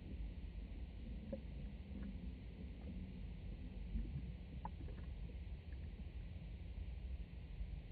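Low, muffled rumble of water around a sinking LEGO boat, heard from a camera inside the model's cabin, with a few faint ticks about a second and a half in and near five seconds.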